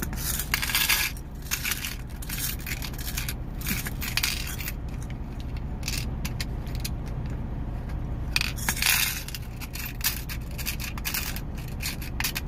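Small metal beads clattering as they are poured and dropped into a clear plastic compartment organizer: scattered clicks and rattles, with two louder pours about half a second in and about eight and a half seconds in. A steady low rumble runs underneath.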